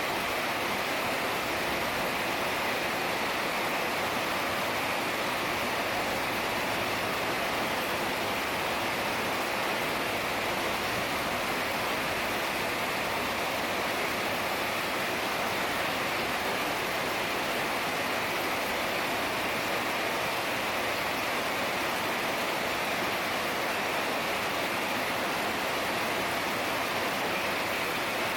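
Heavy rain falling steadily, an even hiss with no breaks or single drops standing out.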